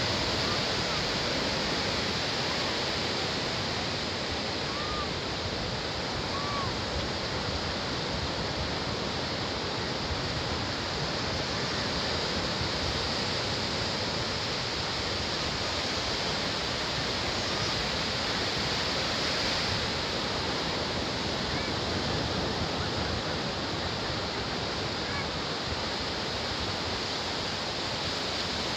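Ocean surf breaking and washing up a flat sandy beach: a continuous, even rush of waves.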